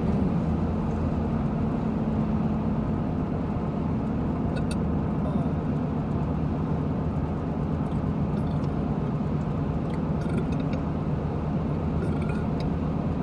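Steady road and engine noise inside a moving car's cabin, with a few faint short clicks scattered through it.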